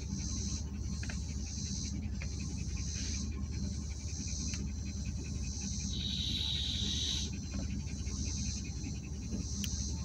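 Insects droning in the roadside grass in repeated stretches about a second long, with a louder stretch about six seconds in. A vehicle's engine idles with a steady low hum underneath.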